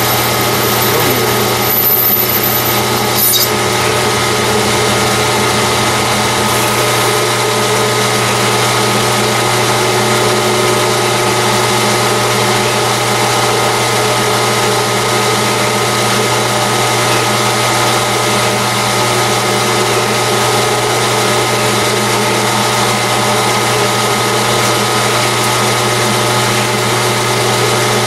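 Metal lathe running steadily, its spindle turning a titanium tube during internal thread-cutting: a constant motor and gear hum. A thin high whine over the first three seconds stops with a click.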